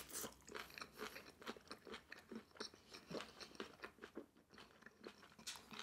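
Quiet, irregular crunching of a person chewing a mouthful of green bell pepper and sweet and sour pork.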